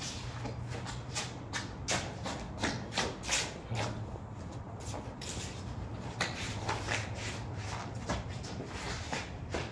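Irregular shuffling and scuffing of shoes on paving tiles, several short scrapes a second and louder a few seconds in, over a steady low hum.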